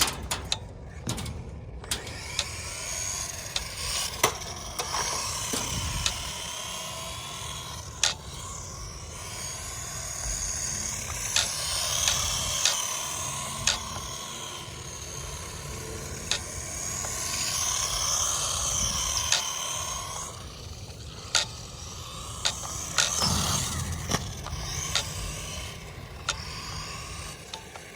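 Traxxas Mini E-Revo VXL RC truck driving on concrete: its brushless electric motor whines, rising and falling with the throttle, over the scrape of the tyres. Sharp knocks come every few seconds as the truck hits bumps and lands.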